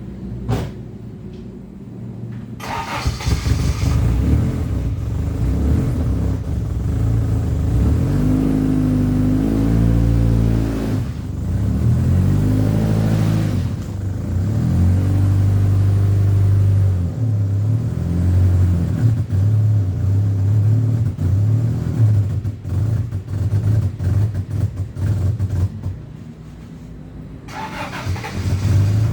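Honda Genio scooter's single-cylinder engine running and being revved unevenly, the revs rising and falling, then stuttering and dipping near the end. It is the hesitating running of an engine brought back to life after standing for 8 to 10 years.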